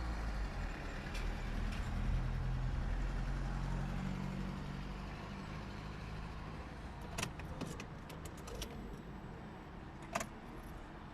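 Car engine idling with a steady low hum, with two sharp clicks about seven and ten seconds in.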